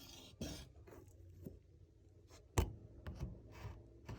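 Light handling noises, scraping and rubbing with scattered clicks and one sharp knock about two and a half seconds in.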